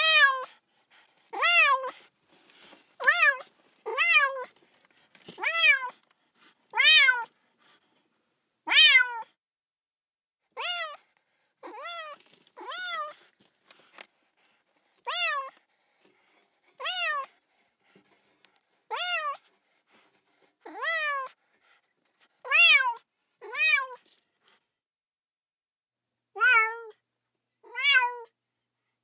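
A kitten meowing over and over: short high calls, each rising then falling in pitch, about one every second or two, with a pause of about two seconds near the end.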